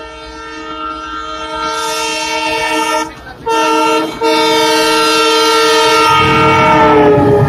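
Horn of an Indian Railways diesel locomotive sounding as it approaches at the head of a goods train: a long multi-tone blast, cut off briefly about three seconds in and again about four seconds in. Near the end the horn's pitch drops as the locomotive passes, and the rumble of the train grows loud.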